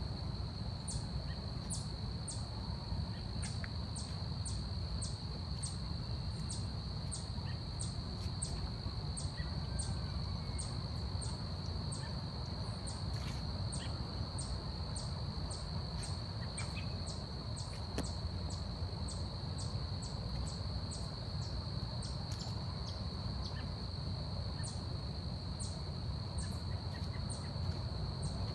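Forest ambience of insects: one steady high-pitched drone held throughout, with short high chirps repeating irregularly about one or two times a second, over a steady low rumble.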